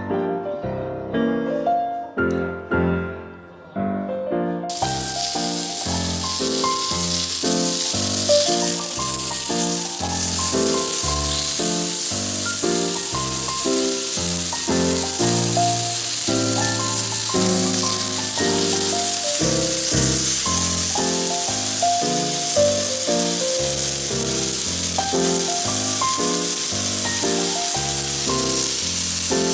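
Background piano music with a steady beat of notes; from about five seconds in, food sizzling as it fries in a hot pan runs under the music.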